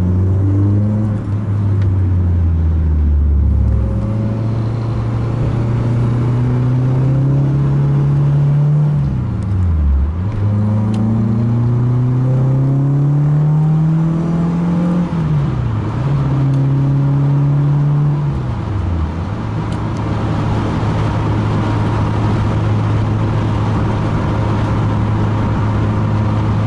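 Renault Clio 2 RS's four-cylinder engine driving under power. The engine note climbs steadily and dips sharply at three gear changes, then holds steady.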